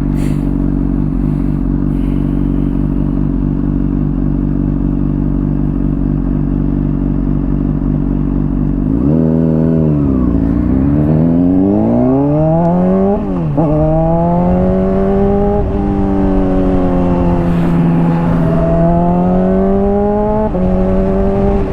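Honda CBR600RR inline-four sport bike with a slip-on exhaust, idling steadily for about nine seconds. It then revs up as it pulls away, with two quick drops in pitch as it shifts up, and settles into steadier running at varying speed.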